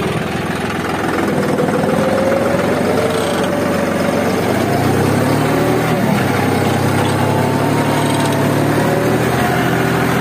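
Tractor diesel engine running under load as it pulls a mounted disc plough through the soil, its pitch rising and falling; a deeper steady drone comes in about halfway.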